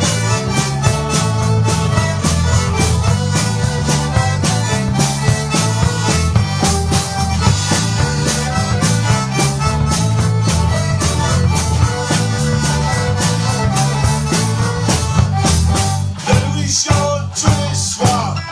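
Live Cajun band playing an instrumental two-step: accordion lead over electric bass, electric guitar and drums with a steady beat. The playing turns sparser and choppier near the end.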